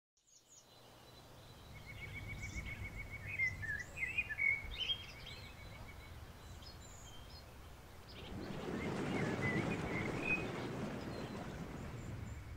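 Outdoor woodland ambience: songbirds chirping and one giving a rapid, even trill for a few seconds, over a low steady rumble. From about two-thirds of the way in, a louder rushing noise takes over.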